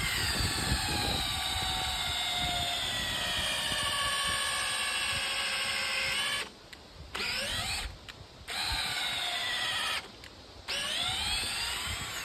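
Electric drill boring a long bit down into a log. The motor whine sags in pitch as the bit bites deeper. About six seconds in it stops, then it runs again in three shorter spurts, each rising in pitch as it spins up.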